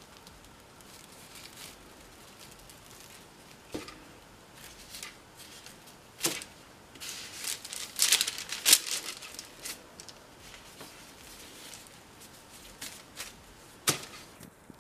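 Intermittent rustling and crinkling handling noise with a few short, sharp knocks, the loudest cluster of rustles coming about eight to nine seconds in.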